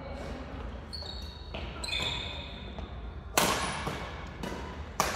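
Badminton rackets hitting the shuttlecock during a rally: two sharp, echoing hits about a second and a half apart, the first the louder. Before them come short high squeaks of court shoes.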